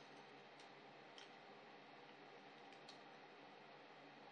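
Near silence: faint room tone with a few scattered light clicks, a pair of them coming close together near the end.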